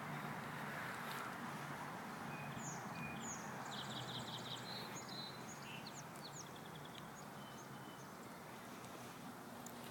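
Small birds chirping, with a run of quick high calls and short falling notes that starts about two seconds in and dies away about seven seconds in, over a steady background hiss of outdoor noise with a low hum that fades over the first few seconds.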